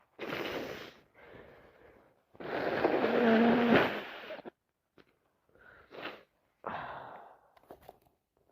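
A woman with a heavy head cold sniffing hard several times, with one long, loud nasal blast of about two seconds a little over two seconds in.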